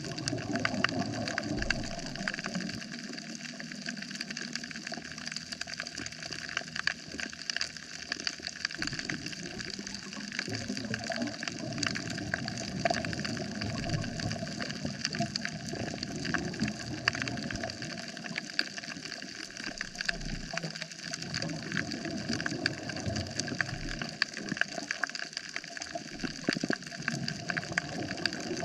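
Underwater coral-reef soundscape: a dense, steady crackle of countless tiny clicks, with low rushing water surges that swell and fade every few seconds.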